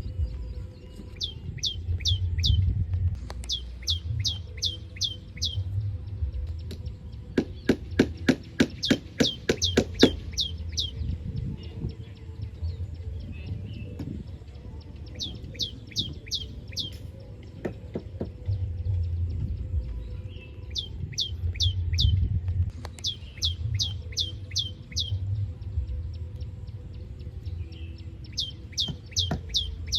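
Oriental pratincoles calling: runs of five or six sharp, quickly falling chirps, repeated every few seconds. About eight seconds in comes a quick run of loud, sharp clicks, over a low rumble throughout.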